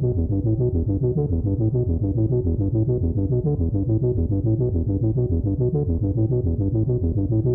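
Background music: a synthesizer tune with a steady, repeating rhythm of low notes.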